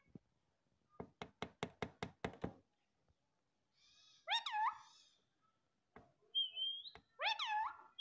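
Indian ringneck parakeet tapping its beak against a mirror, a quick run of about nine sharp taps about a second in. It then gives two short calls, one about halfway through and one near the end, with a brief thin whistle just before the second.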